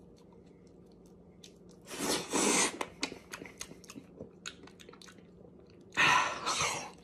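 Close-up eating sounds of a blackened, rotten banana being bitten and chewed: wet chewing with scattered small clicks, and two louder noisy bursts, one about two seconds in and one near the end.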